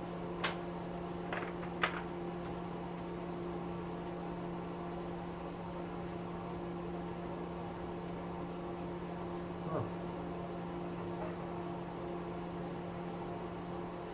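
Steady low electrical hum, with a few sharp clicks in the first two seconds and a soft knock later on, as tools and metal motor parts are handled.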